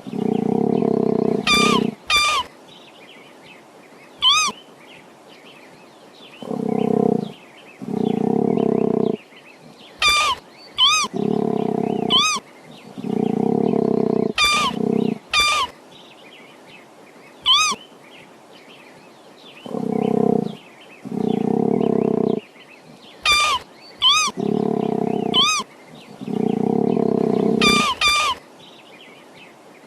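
Deep, rasping animal calls about a second long, mostly in pairs, with short high-pitched chirps between them; the sequence repeats about every ten seconds.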